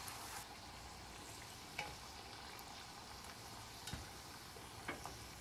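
Thattai deep-frying in hot oil in a steel pot: a faint, steady sizzle. A few light clicks come as a metal slotted skimmer touches the pot while turning them.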